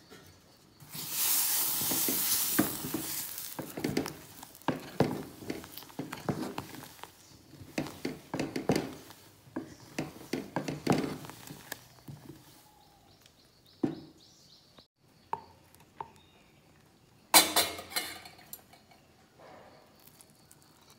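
Curry being stirred in an aluminium pot with a ladle: irregular scrapes and knocks of the ladle against the pot, after a brief hiss a second or so in. A few scattered clicks follow, then one sharp knock near the end.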